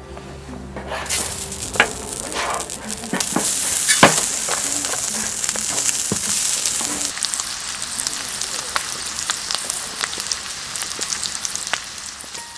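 Food sizzling in a hot pan, with scattered pops and spatters; it swells about a second in, is loudest around four seconds in, and eases off toward the end.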